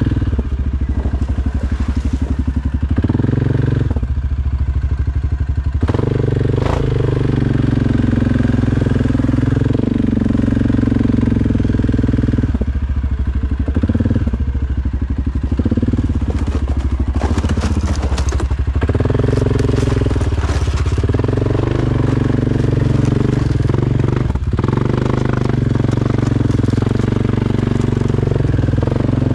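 2022 Suzuki KingQuad 750's single-cylinder engine running through an aftermarket HMF Performance series exhaust, the throttle opened and closed every few seconds so the exhaust note keeps rising and falling. A run of clicks and crackles comes about two-thirds of the way in.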